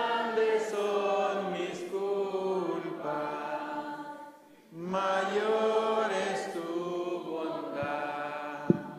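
A congregation singing a slow hymn together in two long phrases, with a short breath between them about halfway through. A sharp knock sounds near the end.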